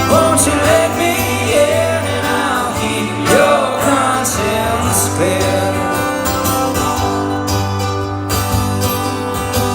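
Live band playing a country-rock song, with guitar and steady accompaniment. Wordless singing rides over it for the first half, then the instruments carry on alone.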